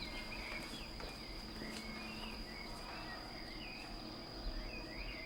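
Faint night-time chorus of crickets chirping steadily, with a thin continuous high trill.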